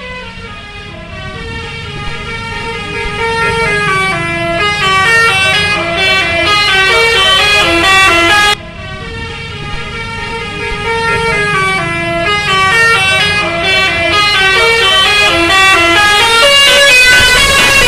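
Indonesian 'telolet' multi-tone bus horns playing a repeating melody of short stepped notes over bus engine noise, growing louder as the buses come closer. A little past halfway the melody cuts off abruptly, then starts again.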